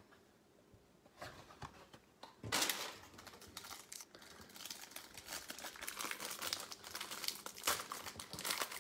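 A trading card pack wrapper being torn open and crinkled: quiet at first, a loud tear about two and a half seconds in, then steady crinkling of the wrapper.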